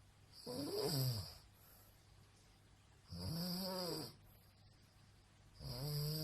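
A woman snoring in her sleep: three long snores about two and a half seconds apart, each a pitched sound that rises and falls.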